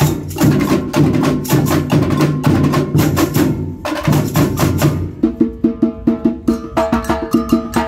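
A batería percussion ensemble playing a fast drum groove with many drums together. About five seconds in, the deep drums drop back and a quick, evenly repeating pattern of high pitched strokes carries on.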